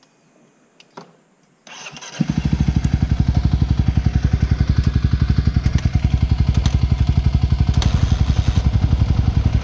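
Off-road motorcycle engine starting about two seconds in, then idling with a loud, even, fast pulse.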